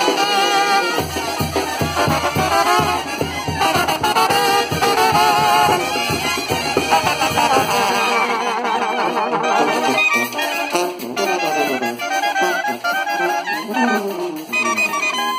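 Mexican banda playing a lively tune: trumpets, trombones and clarinets together over a bass drum with cymbal. A deep bass part sounds from about a second in until about eight seconds in.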